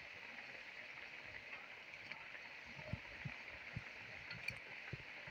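Balushahi dough rounds deep-frying in hot ghee: a faint steady sizzle with scattered small pops and crackles.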